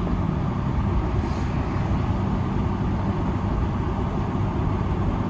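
Steady road noise inside a moving car's cabin: tyres on pavement and engine hum, strongest at the low end.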